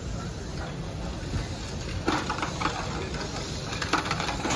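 VEX competition robot driving on the field, its motors and drivetrain running with a few sharp clacks about two seconds in and near the end, over the murmur of a busy gym.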